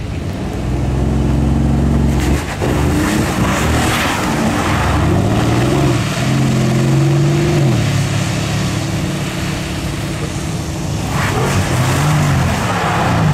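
Supercar engines revving hard and accelerating. The pitch climbs and falls through gear changes, with a short drop in level about two and a half seconds in.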